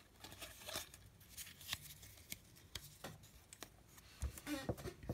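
Pokémon trading cards being slid and shuffled between two hands: faint, scattered card-on-card clicks and light rustling.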